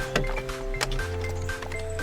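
Background music: sustained chords over a steady bass line, with sharp percussive hits.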